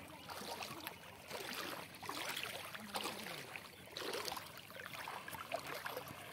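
Floodwater lapping and splashing, coming in uneven swells every second or two.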